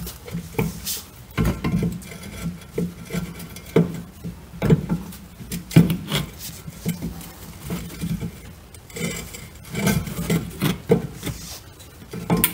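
Ratchet on a long extension working the 16 mm bolts out of a rear shock's upper mount: irregular clicking and rasping with metal-on-metal knocks and clinks.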